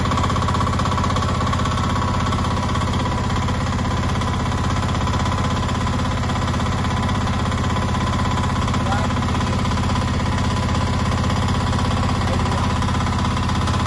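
Small engine of a mini excavator running steadily under load, with a rapid, even pulsing beat, as the boom and bucket are worked through the hydraulic control levers.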